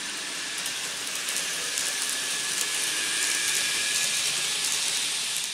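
N gauge model train (Popondetta's Tobu 500 series Revaty) running along the track: a steady hiss of wheels and motor with faint rapid clicks, getting a little louder toward the middle.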